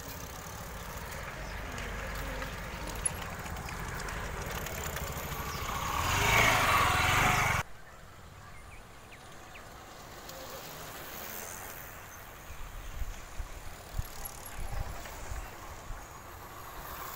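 Outdoor road noise while riding with the bicycles, with wind on the microphone: a rushing noise swells and then cuts off abruptly about seven and a half seconds in. After that it is quieter, with a few light knocks and rattles near the end.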